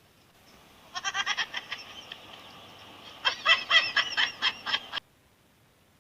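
Comedy sound effect of rapid, bird-like squawking calls in two bursts, the second, starting about three seconds in, louder than the first. It cuts off abruptly about five seconds in.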